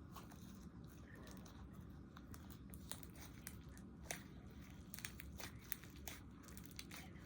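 Slime being worked by hand: faint, scattered sticky clicks and crackles.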